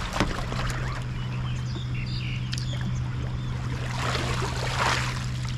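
Water splashing and sloshing around a capsized sea kayak as the paddler rolls it back upright with a Greenland paddle, with a louder rush of water about four seconds in as he comes up. A steady low hum runs underneath.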